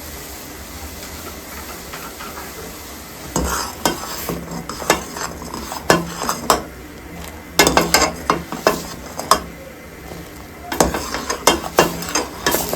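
Milk tea boiling in a pot with a steady hiss, then from about three seconds in a spoon stirring in the pot, clinking and scraping against it in repeated bursts, mixing in the added spice powder.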